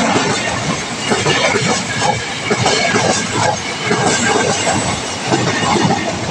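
Former Tokyo Metro 6000 series electric commuter train passing close by, its wheels clattering on the rails over a continuous rumble and hiss of the passing cars.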